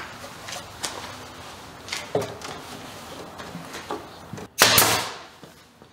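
A plywood box being handled on a wooden workbench: a few scattered wooden knocks and taps. Near the end there is a loud, short burst of hissing noise, about half a second long.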